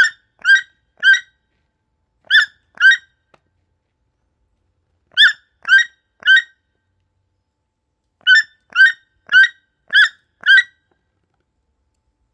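Toucan calling: short calls about half a second apart, in runs of two to five with pauses of one to two seconds between runs, the longest run of five near the end.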